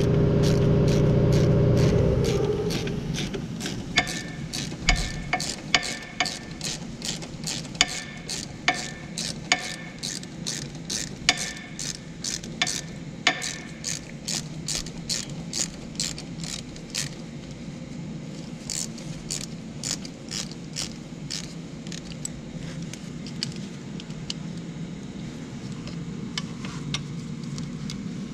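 A steady mechanical hum stops about two seconds in. It is followed by a hand socket ratchet clicking in long runs of quick clicks as a bolt is turned, with short pauses between runs. The clicking thins out and fades in the last third.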